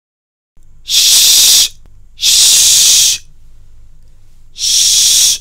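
A voice pronouncing the English 'sh' consonant /ʃ/ in isolation three times. Each is a drawn-out hiss lasting most of a second, the first starting about a second in.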